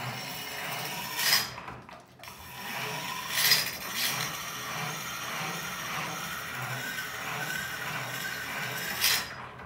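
Hand-cranked bench grinder's wheel grinding the steel edge of a mini-machete: a steady grinding rasp with a short break about two seconds in and three louder scrapes, then it stops at the very end.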